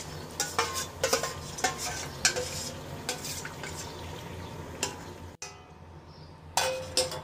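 A metal spoon scraping and clinking around a stainless steel bowl as watery spice paste is stirred out and poured into a kadai, with two sharp clanks and a short ring near the end. A steady low hum runs underneath.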